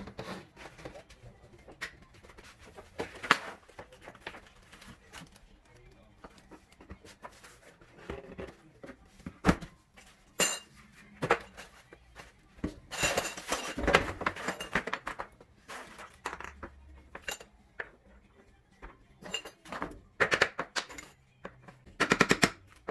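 Irregular clicks, knocks and clinks of the shoe rack's hard parts, poles and plastic connectors, being handled and fitted together, with busier clattering about halfway through and again near the end.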